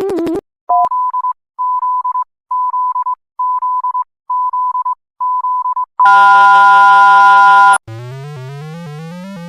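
A run of electronic alarm sounds. A warbling tone cuts off, then a high beep sounds in about six short stuttering bursts. A loud, harsh buzzer-like chord follows for about two seconds, and a tone climbing in steps comes in near the end.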